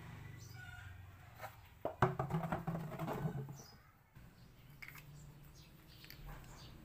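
A white plastic drum being handled on a concrete floor: a sharp hollow knock about two seconds in, then a second or so of clattering and rubbing against the plastic. Short high chirps come and go in the background.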